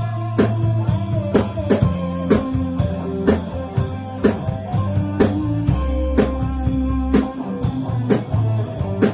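Rock band music: guitar over bass and a drum kit keeping a steady beat of about two hits a second.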